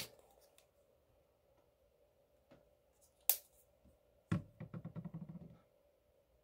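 Small paint bottles being handled and picked through on a workbench: a few sharp plastic clicks, the loudest about three seconds in, then a knock followed by about a second of rapid rattling clatter.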